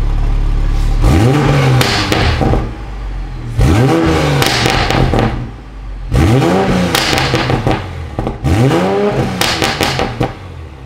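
Toyota A90 Supra's B58 turbocharged 3.0-litre inline-six idling, then revved four times; each blip rises and falls back with pops and crackles on the way down. It runs an off-the-shelf MHD tune with the particulate filter deleted and the exhaust valves held open.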